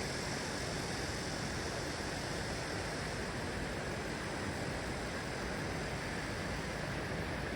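Stream water flowing steadily: an even rushing hiss with no distinct events.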